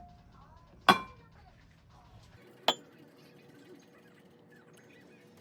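Two sharp clinks of tableware, one about a second in and one near the middle, each with a brief ring. A low background hum cuts off just before the second clink.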